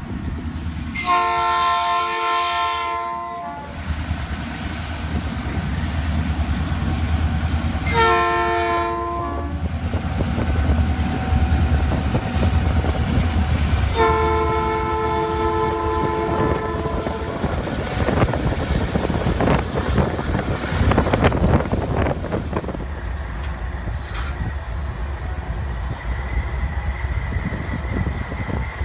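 Norfolk Southern diesel freight locomotives sounding a multi-note horn three times, a long blast, a short one, then a long one, over the steady low rumble of their engines. Then wheels click and clatter over the rails as the locomotives pass close by.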